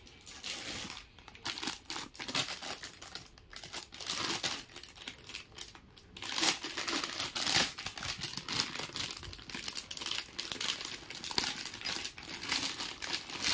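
Plastic packaging crinkling and rustling as it is handled, with irregular crackles throughout and a few louder bursts about halfway through.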